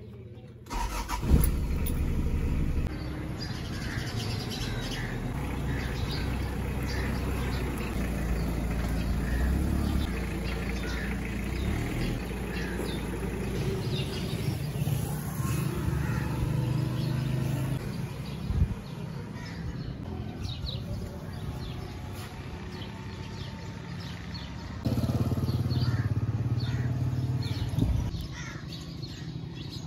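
Toyota Corolla engine and road noise as the car is driven, a steady low rumble that grows louder for a few seconds near the end. Birds chirp over it.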